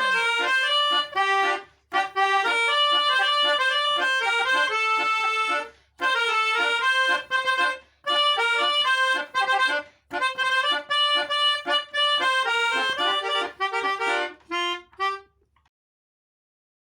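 Basuri melody horn playing a dance tune in a reedy, melodica-like pianika voice, in quick note phrases with short breaks. It stops about fifteen seconds in.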